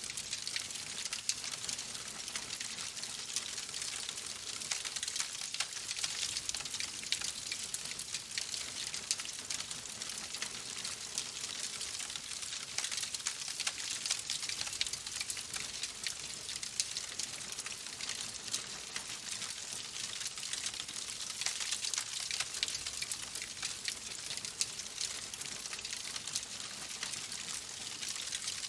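Oak logs burning in a fireplace: a steady hiss of flames with dense, fine crackling and frequent small pops throughout.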